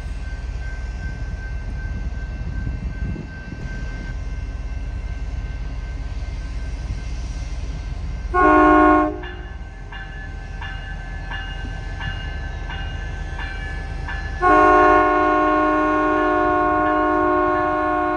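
Amtrak Siemens Charger diesel locomotive arriving at a station: a steady diesel rumble, a short chord blast on its multi-chime air horn about halfway in, its bell ringing about twice a second, then a long horn blast that begins near the end and holds.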